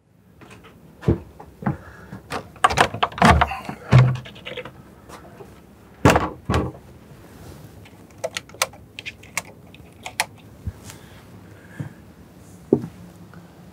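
Footsteps on a wooden plank walkway, with irregular knocks and creaks of the boards. The heaviest knocks come in a cluster a few seconds in, and lighter clicks follow later.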